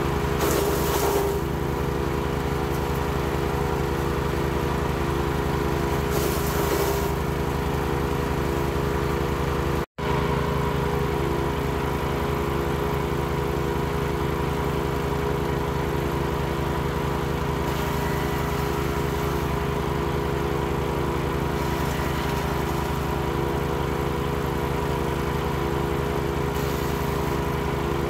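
Wood chipper engine running steadily at speed. Its pitch sags briefly about a second in and again around six seconds, each time with a burst of hiss, as the machine takes load. The sound drops out for an instant just before ten seconds.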